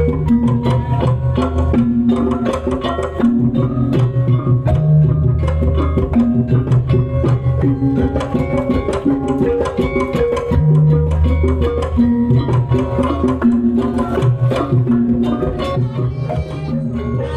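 Loud live music driven by hand drums and other percussion, rapid strikes over repeating deep bass notes and held pitched notes, played through a stage sound system during a sound check.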